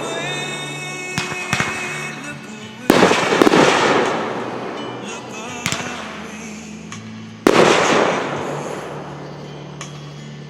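Aerial fireworks bursting: two loud booms about four and a half seconds apart, each fading out in a crackle, with a few smaller pops and cracks between them. Music plays underneath.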